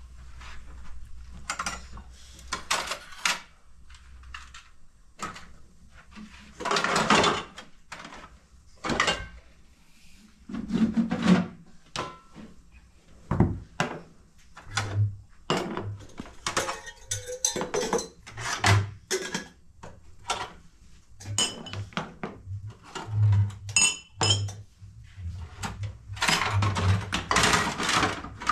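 Metal pots, pans and bowls clattering and clinking as they are picked up and set down by hand, in irregular knocks with an occasional ringing clink, and some soft low thuds in the second half.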